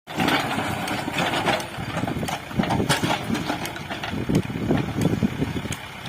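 Heavy machinery engine running unevenly, with scattered sharp clicks and knocks.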